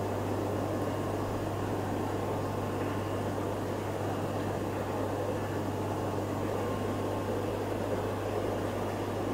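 Steady hum of aquarium air pumps with the constant bubbling of air-driven sponge filters across many fish tanks at once.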